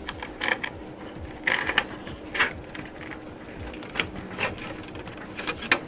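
Irregular small clicks, taps and knocks of parts being handled inside a desktop PC case, over a faint steady hum.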